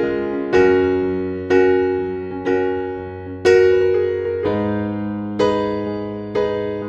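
Background music: slow solo piano, a chord struck about once a second and left to ring and fade before the next.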